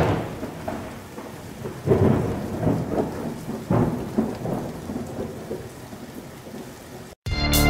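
Thunderstorm: steady rain with claps and rumbles of thunder, the loudest right at the start, again about two seconds in and near four seconds. It cuts off shortly before the end, when music starts.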